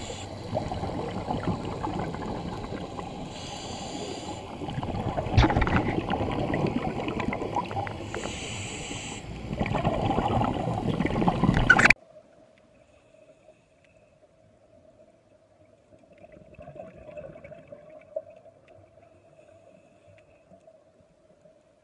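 Underwater sound from a scuba diver's camera: a steady rumble of water and exhaled bubbles, with a short hiss of breath through the regulator twice. About halfway in it cuts off suddenly, leaving only a faint steady hum.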